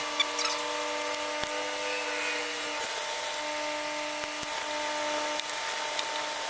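Air-conditioning unit running, with a steady machine hum and whine over a hiss. A second, higher tone fades out about three seconds in, and there are a few faint clicks.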